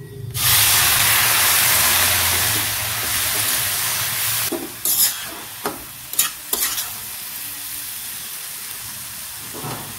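Semolina and vegetables in a hot nonstick kadai sizzling as warm water hits them. The sizzle starts suddenly and slowly dies down. A metal spatula scrapes and taps against the pan a few times midway and once near the end as the mix is stirred.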